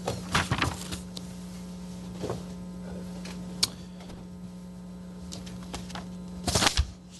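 Steady low electrical hum, with scattered clicks and knocks a few seconds apart; a quick cluster of knocks near the end is the loudest sound.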